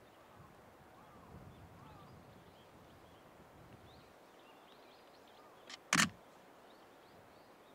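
Quiet outdoor ambience with faint, scattered bird chirps, broken about six seconds in by a sharp double click, a small one followed at once by a louder one.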